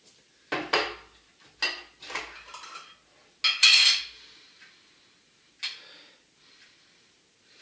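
The lid is taken off a glass jar, with a few short knocks and clinks. About three and a half seconds in comes a louder, half-second rushing sound as the open jar is raised to the nose to be smelled.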